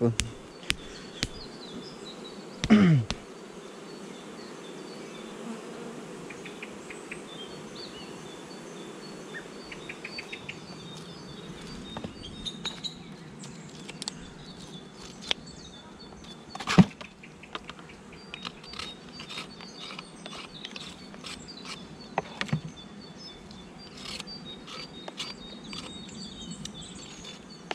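Honeybees buzzing steadily around an open hive, with a brief falling buzz about three seconds in. From about twelve seconds on, a run of small clicks and scrapes as drone brood comb is cut and scraped off a frame with a knife and hive tool, with one sharp knock about halfway through.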